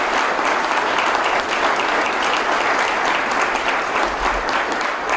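Audience applauding steadily: a dense patter of many hands clapping in a large room.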